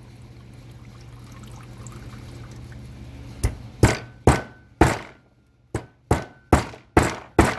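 A hammer tapping on a seized motorcycle carburettor to free a stuck part: about nine sharp knocks in two runs, with a faint metallic ring.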